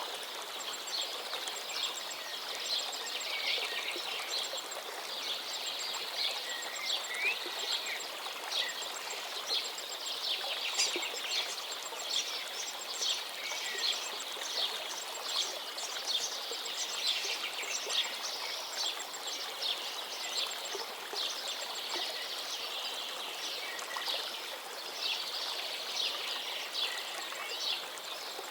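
River water flowing with a steady rush, and birds chirping again and again over it.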